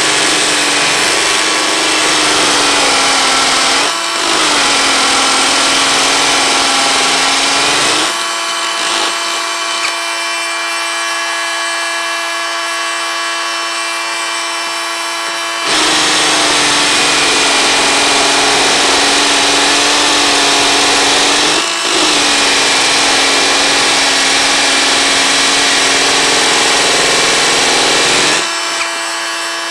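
Ryobi One+ brushless hammer drill drilling into a concrete block, its motor pitch dropping and wavering under load. About eight seconds in, the bit is drawn out of the hole and the drill spins freely at a steadier, higher pitch for several seconds, then bites again. It runs free once more near the end.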